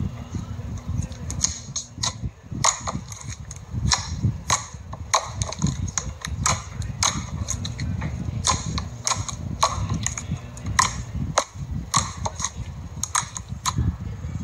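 Slime being squeezed and pressed by hand, popping and clicking sharply and irregularly, about two or three pops a second, over a low rumble of handling.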